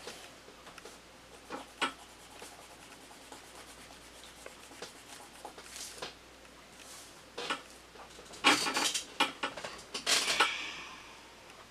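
Pen scratching on notebook paper and a hand rubbing across the page, in scattered short strokes, with a louder run of scratching and rubbing about eight to ten and a half seconds in.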